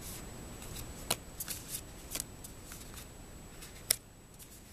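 Magic: The Gathering trading cards being handled and laid one by one onto a pile: a series of light, sharp card clicks and slides, with one louder snap near the end.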